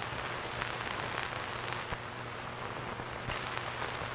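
Steady hiss with scattered crackles and a faint low hum, typical of the worn soundtrack of an old 1950s film playing with no dialogue or music.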